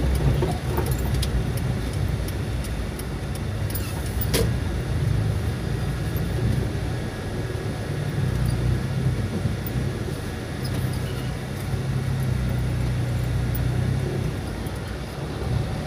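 Car engine and tyre noise heard from inside a moving car: a steady low rumble with a sharp click about four seconds in.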